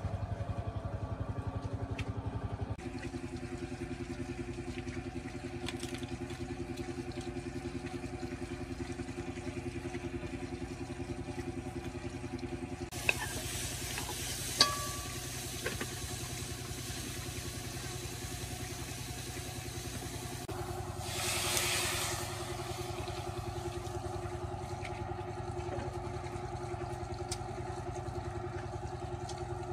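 Small motorcycle engine running steadily, with a low, even hum. A few sharp clicks come about a third of the way through, and a brief rush of hissing noise about two-thirds through.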